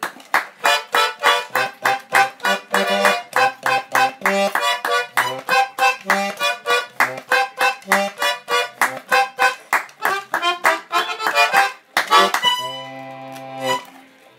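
Accordion playing fast staccato chords, about four a second, over alternating bass notes, then ending on one long held chord.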